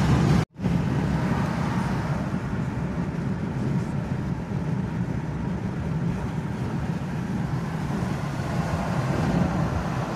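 Steady road and engine noise inside a pickup truck's cabin at highway speed. The sound cuts out to silence for a moment about half a second in, then carries on evenly.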